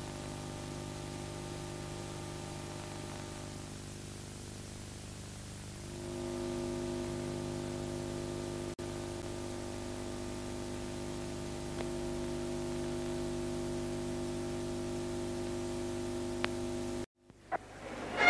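Steady hiss and electrical hum of an old videotape recording with no programme sound, the hum growing a little louder about six seconds in. Near the end the sound drops out briefly and a violin begins to play.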